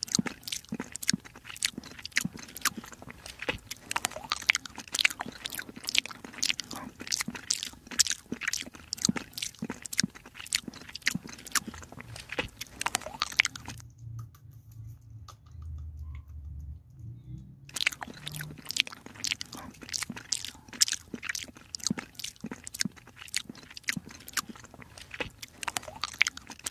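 Kitten eating wet cat food close up: rapid wet chewing and smacking clicks, with a pause of about four seconds around the middle before the chewing resumes.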